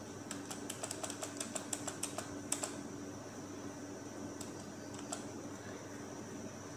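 Computer keyboard keys pressed in a quick run of light clicks for about two and a half seconds, then two single key presses near the end, over a faint steady hum.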